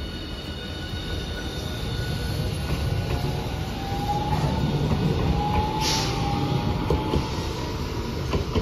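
Hiroden Green Mover APEX low-floor tram running past over station track and points, with a steady rumble and a high whine that glides slightly upward. A short burst of hiss comes about six seconds in, and a few sharp clicks near the end.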